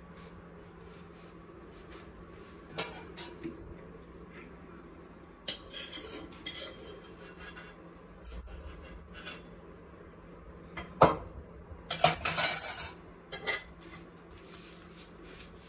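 Kitchen clatter: scattered clinks and scrapes of dishes and cutlery, with the loudest cluster about three-quarters of the way through, over a faint steady hum.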